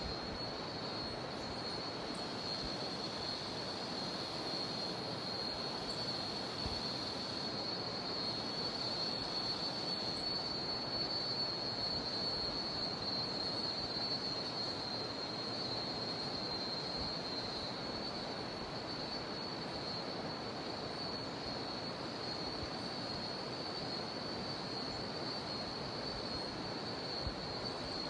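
Rushing jungle river water with a continuous high-pitched drone of cicadas over it, both steady.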